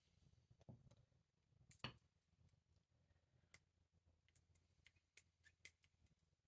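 Faint, scattered small clicks and ticks of padlock parts being handled as the disc-detainer core is taken apart, about a dozen irregular clicks with the louder ones about two seconds in and in the second half.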